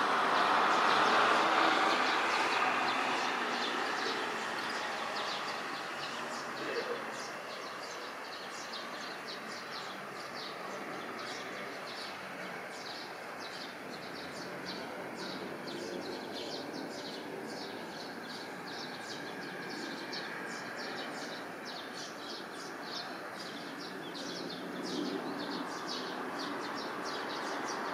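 Embraer 175 regional jet climbing out after takeoff: a steady, wide jet-engine rumble, loudest in the first few seconds and then easing to a lower steady level. From about six seconds in, a small bird chirps rapidly over it.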